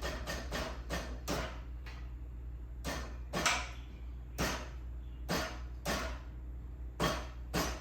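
A series of sharp taps or knocks, quick at first and then irregular, about one or two a second, with a steady low hum underneath.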